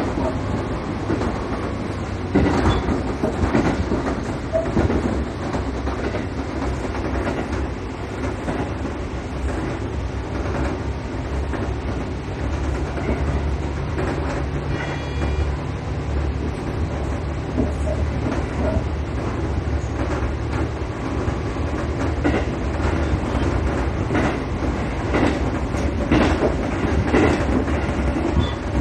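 Cab-end interior sound of a diesel railcar under way: the engine runs with a steady low drone while the wheels click over rail joints at irregular intervals. A brief high ringing tone sounds about halfway through.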